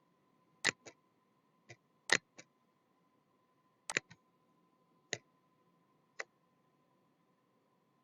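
Computer button clicks, about ten sharp single clicks at irregular intervals, some in quick press-and-release pairs, as controls are clicked in the laptop's camera application. A faint steady high tone runs underneath.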